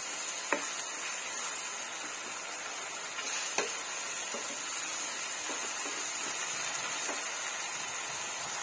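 Shrimp paste sautéing with tomatoes, onion and garlic in pork fat in a nonstick pan, sizzling steadily while a wooden spatula stirs and scrapes through it, with a few light knocks of the spatula against the pan.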